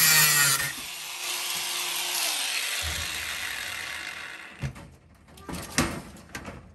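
Cordless power tool grinding against screw points that poke through the plywood nest-box wall: a loud high grinding hiss that eases about half a second in as the motor winds down, a quieter spell of running that spins down near the middle, then a few sharp knocks near the end.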